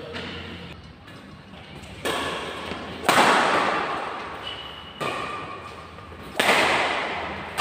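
Badminton rackets striking a shuttlecock in a rally: four sharp hits about one to two seconds apart, each ringing on in the echo of a large hard-walled hall.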